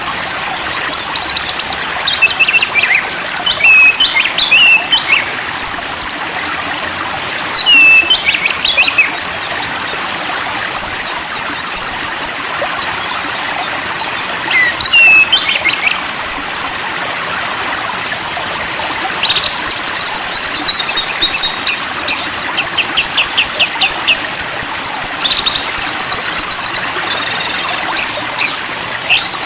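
Songbirds whistling and chirping over the steady rush of a flowing stream. The calls come as scattered short whistled phrases at first, then from about two-thirds of the way in turn into fast, dense chirping.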